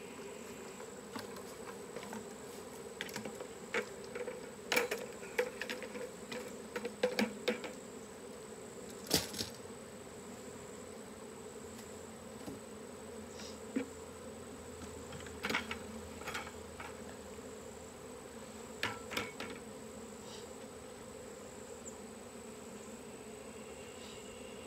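Honey bee swarm buzzing as a steady hum, with scattered sharp clicks and knocks through most of the first twenty seconds.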